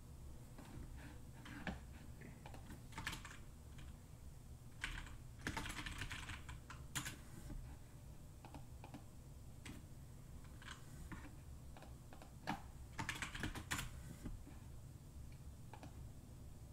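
Faint typing on a computer keyboard: short runs of key clicks with pauses between them.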